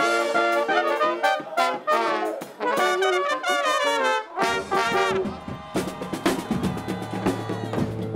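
Street brass band with trumpets and saxophone playing a lively tune over a beat. About four and a half seconds in the tune drops away and denser drumming takes over, with a steady low hum beneath it.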